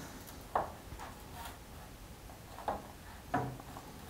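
A few short knocks and small splashes from a photographic developing tray as the developer is agitated over a print, three or four in all, each ringing briefly.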